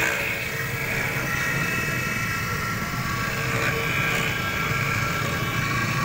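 Electric key-duplicating machine running, its motor-driven cutter milling a groove into a metal key blank: a steady whine made of several high tones over a low motor hum.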